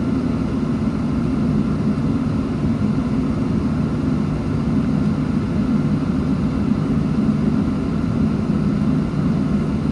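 Boeing 737 airliner's jet engines idling, heard from inside the passenger cabin as a steady low rumble with a hiss of cabin air, while the aircraft waits on the ground before its takeoff run.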